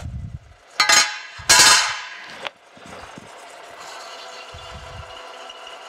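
A sheet-metal panel clatters and scrapes loudly on a steel machine table as it is flipped, twice in quick succession about a second in. Then the drilling machine's spindle runs steadily with a countersink deburring the drilled holes, with a few light knocks as the plate is shifted.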